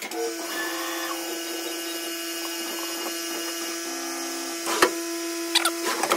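Tormach 1100MX CNC mill running a program, its spindle giving a steady whine while milling an aluminum part, with one sharp click about five seconds in.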